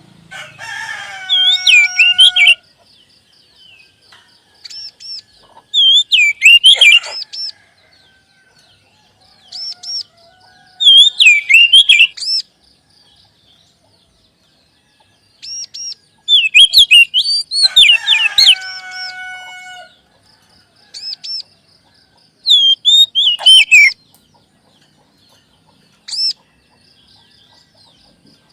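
Oriental magpie-robin (kacer) singing: loud, varied whistled phrases with gliding notes and a few harsh notes, given in bursts every few seconds with short pauses between. This is the bold, full-voiced song that keepers play to stir a caged kacer into singing.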